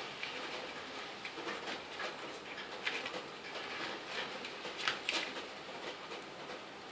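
A lovebird tearing paper with its beak: irregular papery crackling and rustling with a few sharper snaps, about 3 and 5 seconds in. This is the female lovebird's habit of cutting long paper strips to tuck into her feathers.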